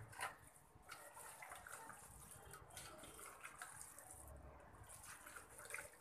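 Faint, irregular wet squishing and soft clicks of a hand kneading raw beef pieces with oil, chopped onion and ground spices in a metal pot.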